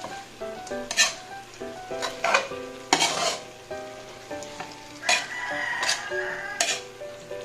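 Metal spatula scraping and stirring bean-sprout filling as it sizzles in a pan, a stroke every second or so. Background music plays throughout.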